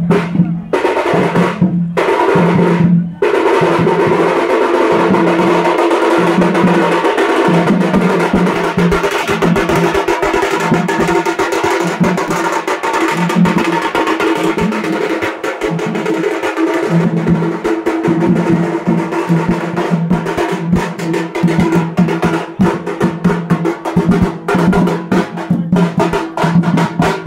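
Street drummers beating double-headed drums with sticks: a few separate beats, then from about three seconds in a fast continuous roll over a deep beat about once a second.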